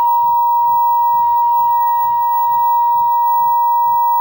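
Steady, loud, high-pitched test tone from the Bush A823B colour television's loudspeaker. It shows the set's sound section working again after the suspected faulty part was replaced.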